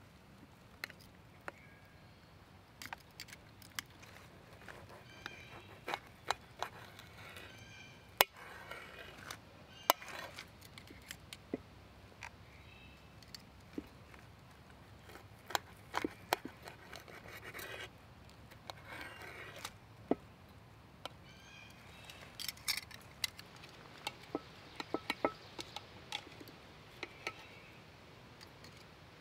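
Metal knife and fork clinking and scraping on an enamel plate while a steak is cut, in sharp, irregular clicks.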